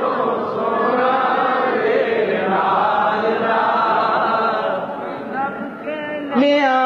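A group of male voices chanting the naat's melody together, unaccompanied, between the reciter's lines. Near the end a single solo voice comes back in over them, holding a clear sung note.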